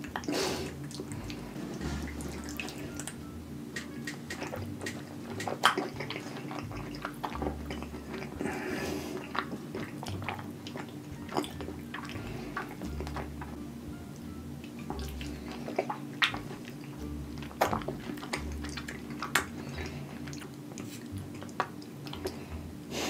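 Close-miked wet eating sounds of a creamy, cheesy pasta bake: a run of short, sticky clicks and slurps from mouthfuls being chewed. Background music with a steady bass line plays under them.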